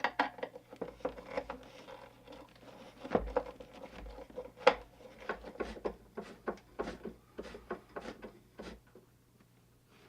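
Hand work on the amplifier: an irregular run of sharp clicks and knocks from tools and parts being handled, stopping about nine seconds in, over a faint steady hum.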